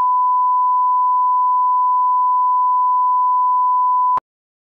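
1 kHz line-up test tone played with SMPTE colour bars: a single steady beep that cuts off abruptly about four seconds in.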